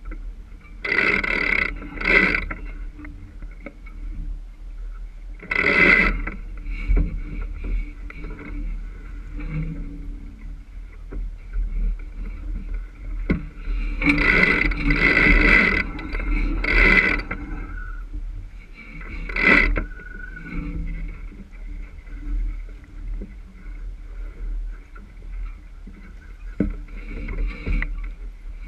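Sailboat under way in a fresh breeze: a steady low wind rumble on the microphone with water rushing along the hull. Several louder rushing surges come through, the longest lasting a few seconds midway.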